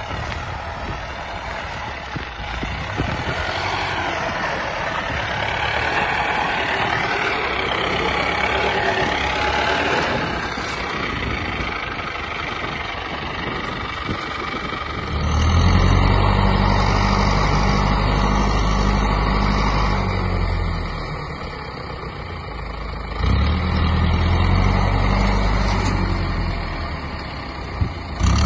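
IFA W50 LA 4x4 truck's diesel engine working as the truck drives through snow, its pitch wavering up and down with the throttle. About halfway in it becomes much louder and deeper, drops back briefly, then comes back loud.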